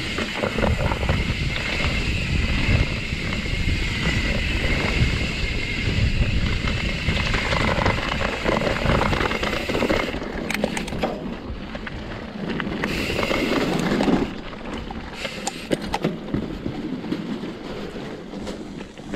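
Wind rushing over the microphone and tyres rolling over a dirt and rock trail as a mountain bike descends, with the bike rattling over the rough ground. About ten seconds in the rush drops and scattered clicks and knocks come through.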